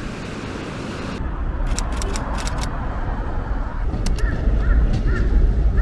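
Waves breaking on a sandy beach as a steady hiss, then outdoor city ambience with a low rumble and scattered clicks. Near the end come four short repeated calls, typical of a bird.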